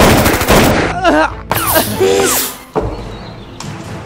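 Rapid-fire gunshot sound effect dubbed over a toy gun, a burst of shots lasting about a second, followed by a few short vocal cries with sliding pitch, over background music.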